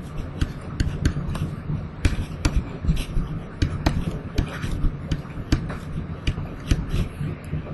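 Stylus clicking and tapping on a pen tablet while writing, in irregular quick taps several a second, over a steady low hum.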